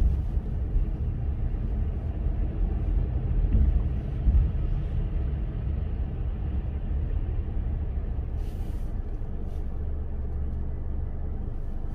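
Steady low rumble of a car being driven in traffic, engine and tyre noise, with a brief louder bump about four seconds in.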